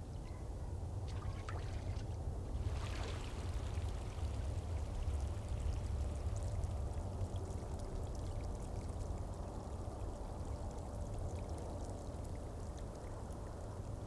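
Shallow water trickling and pouring over a muddy riverbank, a steady wash with a low rumble beneath it and a brief louder rush about three seconds in.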